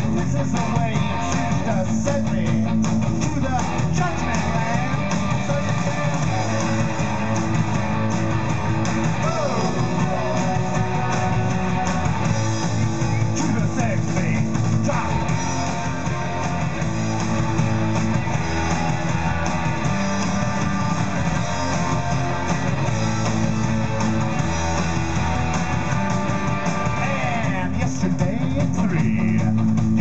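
Live rock band playing loudly, electric guitars to the fore, without a break.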